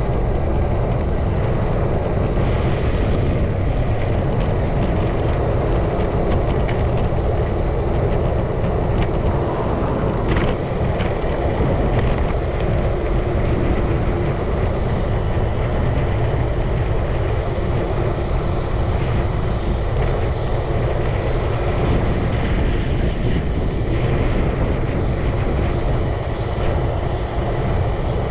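Hi-Boy scooter engine running steadily under way, with wind rushing over the microphone.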